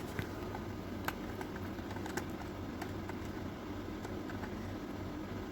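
Small battery-powered motor of a toy dolphin playset running with a steady hum and light plastic clicking, a sign that the freshly fitted batteries have charge.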